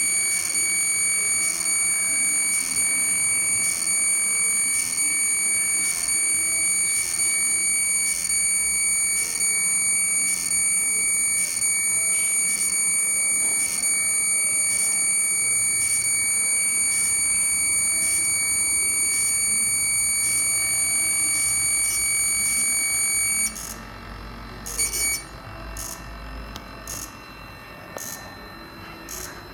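An electronic buzzer or alarm holds a steady high-pitched tone, with a regular tick about three times every two seconds. It cuts off suddenly about 23 seconds in, leaving a quieter low rumble.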